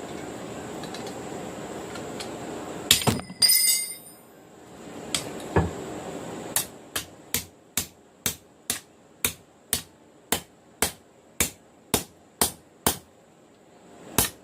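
Hand hammer striking a steel punch to drive a hole through hot knife steel: after a steady rushing noise and a couple of blows with a long metallic ring about three seconds in, a steady run of about a dozen strikes at roughly two a second.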